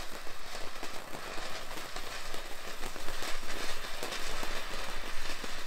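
Standard Fireworks garden fountain burning, a steady spray of hissing sparks with dense fine crackling.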